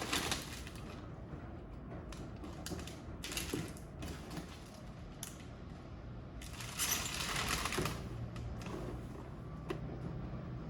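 Grocery delivery packaging being handled and unpacked: bursts of rustling at the start, about three and a half seconds in, and for a second or so around seven seconds in, with small clicks and knocks between.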